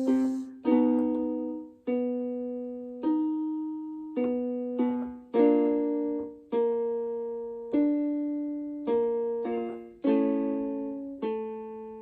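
Keyboard playing a vocal-exercise accompaniment: piano-sounding notes, sometimes two together, struck about once a second, each dying away before the next.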